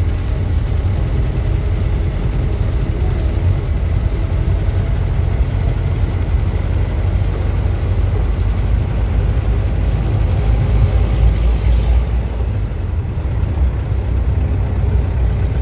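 Vehicle engine and road noise heard from a moving off-road car: a steady low rumble.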